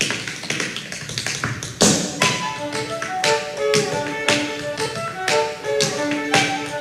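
Tap shoes striking the stage in quick, uneven rhythms, with the loudest strike about two seconds in, while a violin plays a melody of held notes over the taps.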